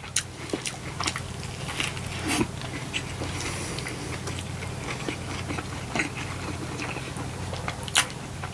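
Close-miked chewing of a mouthful of burger: irregular wet mouth clicks and smacks, the sharpest near the end, over a steady low hum.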